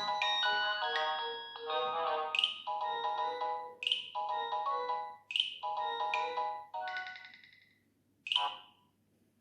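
Nokia 6600 polyphonic ringtone playing: a synthesised melody of several notes at once, with a sharp accent about every second and a half. It fades out near the end after one last accent.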